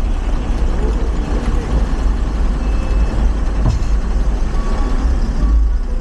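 Steady low rumble of motor vehicle engines idling and moving at a ferry's vehicle loading ramp.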